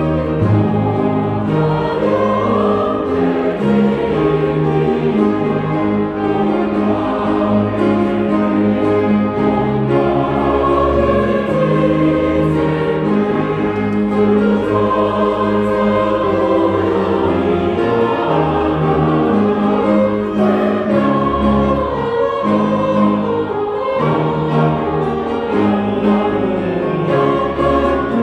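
Large church choir singing a Christmas carol with a small orchestra of strings accompanying.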